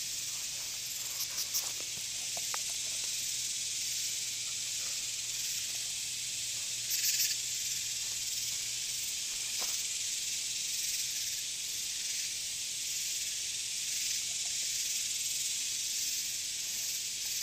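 Steady, high-pitched chorus of insects, shrilling with a slow pulse, with a few brief clicks about a second in and again about seven seconds in.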